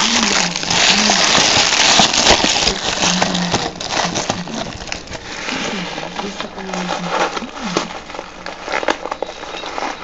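Plastic wrapping crinkling and crackling as it is handled and crumpled, loudest for the first few seconds, then fading to lighter rustling with small clicks.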